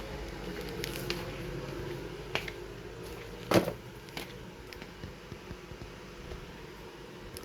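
Low steady room hum with a few small clicks and one loud, short knock about three and a half seconds in.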